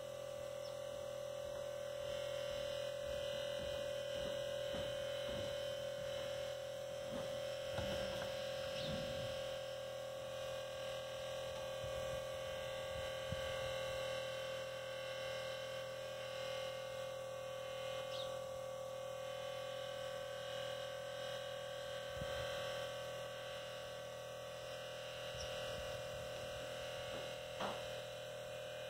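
Tesla Model S air-suspension compressor running steadily with a constant electric hum, pumping air into the air springs to lift the car. A few faint knocks are heard along with it.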